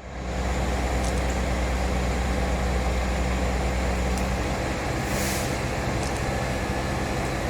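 A heavy engine running steadily, coming up in level right at the start, with its note shifting a little about halfway through.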